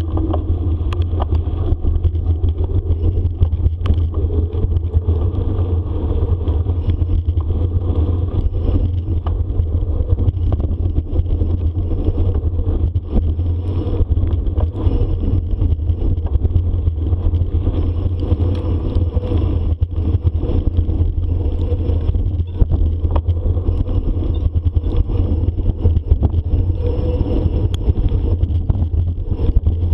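Steady low rumble of wind and riding noise on a bicycle-carried microphone, with scattered knocks and rattles as the bicycle rides over a rough trail.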